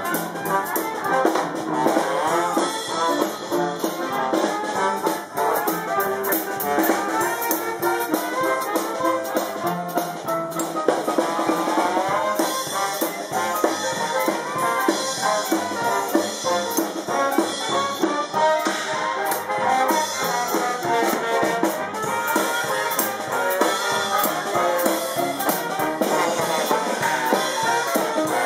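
Dixieland jazz band playing continuously, with brass horns over string bass and drum kit.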